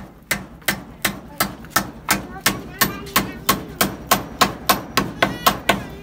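Claw hammer striking split bamboo slats onto a wooden post in a steady rhythm, about three blows a second. From about halfway through, some blows ring with a metallic tone.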